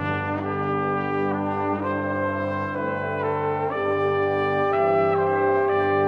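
Orchestral brass music: trumpets and trombones play a slow melody over a held low chord.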